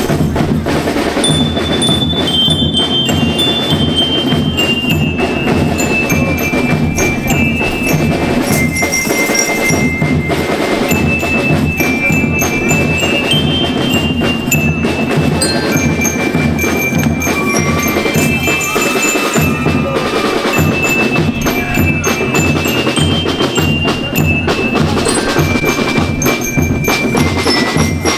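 School rhythm band playing a march: a melody of ringing metal notes on bell lyres over a steady beat of drums.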